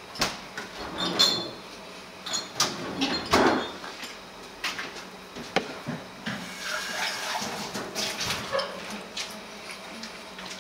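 Scattered clinks and knocks of dishes and glassware being handled on a table, with a louder clatter about a second in and again around three and a half seconds.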